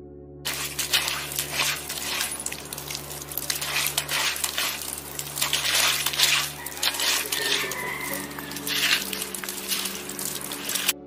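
A dog digging hard with its front paws in wet gravel and mud: fast scraping and clattering of small stones, in uneven bursts. Soft ambient music plays underneath.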